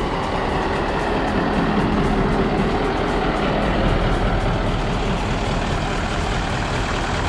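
Mercedes-Benz 1935 tipper truck's diesel engine idling: a steady, close engine noise with no changes.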